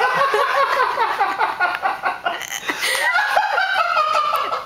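Hearty, high-pitched laughter in quick pulses that runs for several seconds and eases off near the end.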